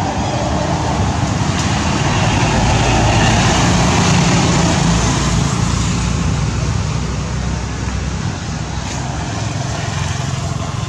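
Road traffic: a motor vehicle passing, its engine and tyre noise swelling to a peak a few seconds in and then slowly fading.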